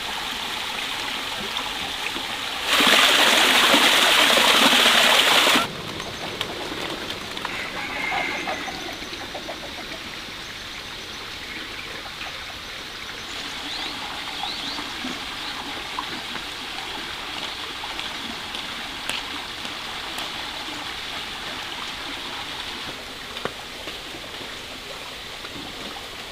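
Water trickling steadily, with a few faint bird chirps. About three seconds in, a much louder rushing noise starts abruptly, lasts about three seconds, then cuts off.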